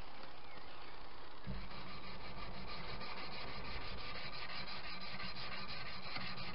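Hand sanding of a mild steel blade with sanding mesh: a steady, scratchy rubbing of abrasive mesh on steel, in many quick short strokes.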